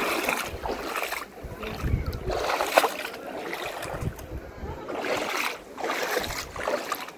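Water splashing and sloshing in uneven surges.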